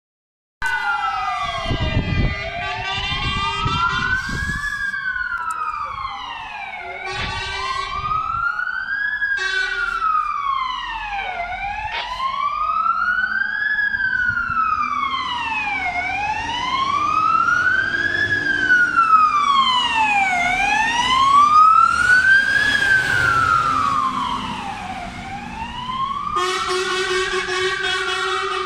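Fire engines on an emergency run, their wailing sirens rising and falling about every four and a half seconds, two or more sirens overlapping out of step. Short blasts of the trucks' air horns cut in several times, including a longer blast near the end.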